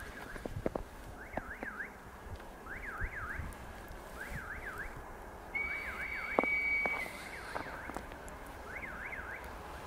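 Electronic warning signal, probably from a railway level crossing, warbling in short groups of two or three quick up-and-down sweeps that repeat about every second and a half. Over it, about halfway through, a single steady high whistle lasts just over a second.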